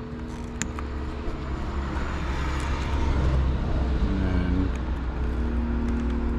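Low rumble of road traffic, swelling as a vehicle passes, with a few sharp clicks over it.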